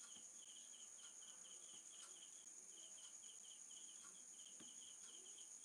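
Faint crickets chirping: short chirps repeating several times a second, some in quick pairs, over a steady high-pitched whine, with a few faint clicks.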